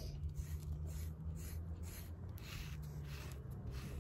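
Furminator deshedding brush raked through a golden retriever's thick coat in short scratchy strokes, about two a second, pulling out loose undercoat. A low steady hum runs underneath.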